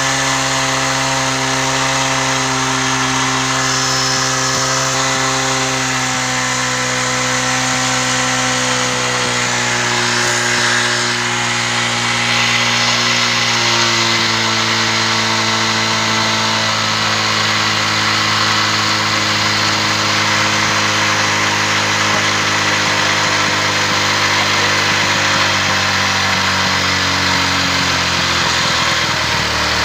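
Hero Honda CD100 SS's single-cylinder four-stroke engine running steadily at a fast idle, its speed drifting slowly lower.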